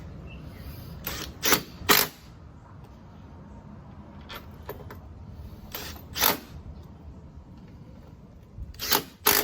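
Sharp mechanical clicks and clacks from a drill being fitted with a new bit, coming in quick pairs three times.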